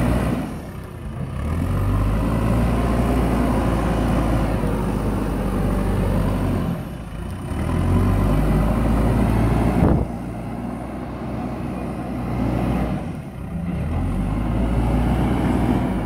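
Diesel engine of a JCB backhoe loader running under load and revving up and down several times as the front loader bucket pushes and scrapes soil. There is a sharp knock about ten seconds in.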